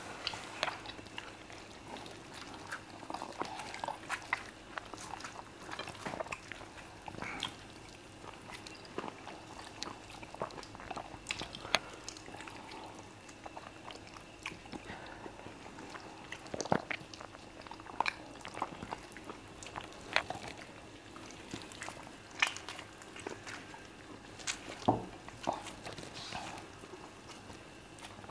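Two people eating fufu and chicken by hand, picked up close by clip-on microphones: chewing and wet mouth sounds with scattered sharp smacks and clicks.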